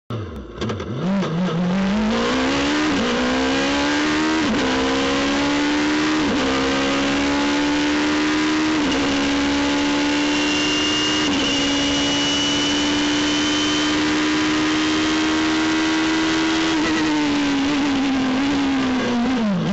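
Radical SR3's four-cylinder motorcycle-derived engine, heard from the cockpit, accelerating hard from a race start. The revs climb and drop sharply with four quick upshifts in the first nine seconds, hold high and steady with a thin high whine, then fall away near the end as the car slows for a corner.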